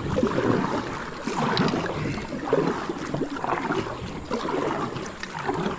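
Kayak paddle strokes splashing and swishing through river water in repeated strokes as the kayak is turned around.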